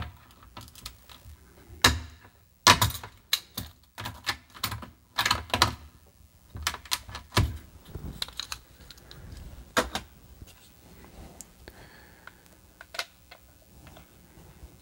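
Irregular sharp clicks and clacks of the SID chip being worked out of its socket on a Commodore 64 motherboard, with small handling knocks; they thin out after about ten seconds.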